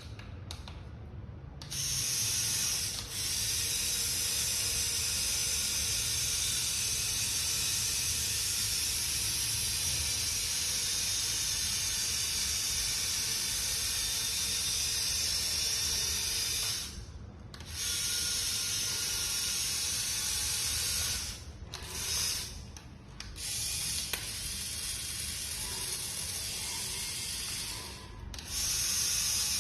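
Small electric motors of a remote-controlled metal model bulldozer running, a high hissy whir that starts about two seconds in and stops and restarts several times as its functions are switched.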